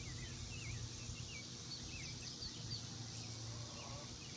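Small birds chirping in short, quick twittering calls over a steady high hiss and a low background rumble.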